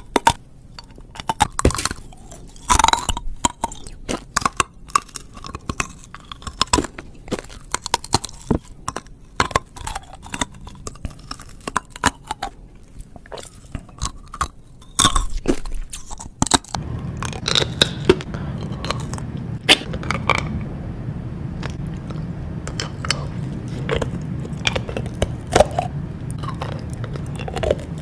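Rock candy on a stick being bitten and chewed close to the microphone: sharp, irregular cracks and crunches as the hard sugar crystals break between the teeth. A little past halfway, a steady low hum comes in under the crunching.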